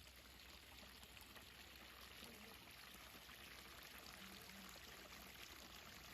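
Faint, steady babbling water, like a small stream trickling.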